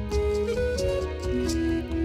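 Background music played with a plucked guitar.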